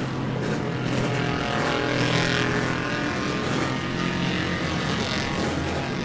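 Racing motorcycle engine idling steadily.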